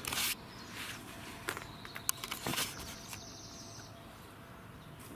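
Footsteps and rustling of people walking, with scattered sharp clicks and knocks. The loudest is a short noise at the very start.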